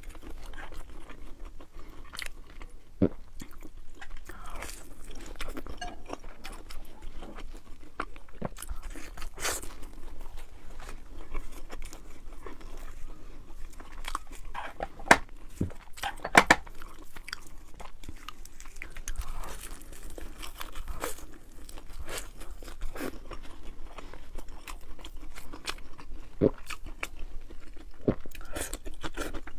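A person chewing and biting crunchy food, with irregular crunches throughout, the loudest few about halfway through.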